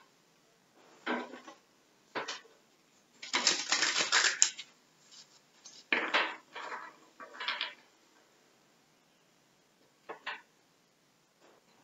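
Tarot deck being shuffled by hand: short bursts of card rustling and clicking, with the longest and loudest run of shuffling a little over three seconds in, then a few shorter bursts.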